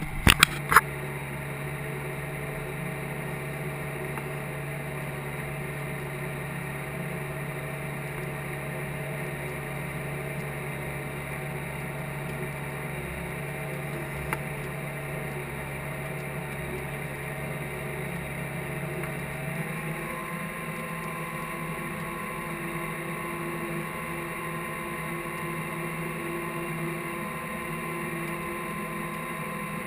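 Case IH tractor's diesel engine running steadily under load while pulling a field cultivator, a constant drone with a few sharp clicks in the first second. About twenty seconds in, the engine note changes to a different steady pitch.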